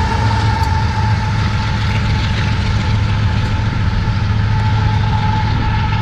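BNSF freight train rolling past with a steady low rumble and a thin, steady high-pitched tone over it.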